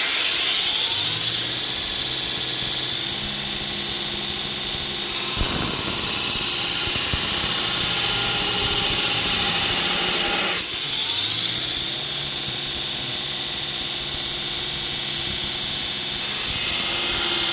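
Torus 2x72 belt grinder with a 1 hp motor, its 36-grit belt grinding 440C stainless steel under hard pressure: a loud, steady grinding hiss over the motor's hum. About ten and a half seconds in the sound dips briefly and the motor's pitch climbs back, as the motor bogs under the load and recovers.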